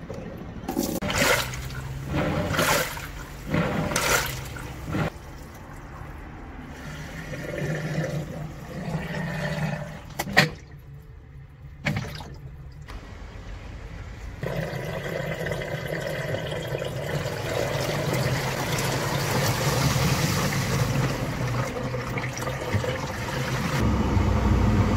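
Water running and splashing while washing-machine parts are washed, with several knocks and clatters of the parts in the first few seconds. About halfway through, a steady rush of water starts and grows gradually louder.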